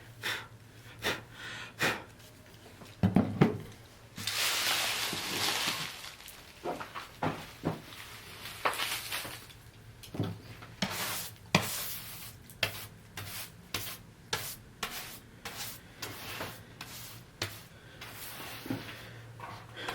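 Hand woodworking in a small shop: a run of short knocks and clicks of wood and tools, with one longer hissing stroke across the wood from about four to six seconds in. A faint steady hum lies underneath.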